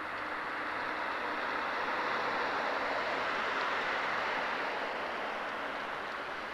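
Two cars passing close by on a paved road: tyre and engine noise swelling to a peak in the middle and then fading away.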